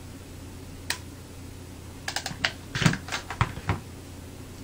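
Small clicks and taps from handling a hot glue gun and paper flower pieces, sparse at first, with a cluster of louder knocks about three seconds in as the glue gun is put back in its stand.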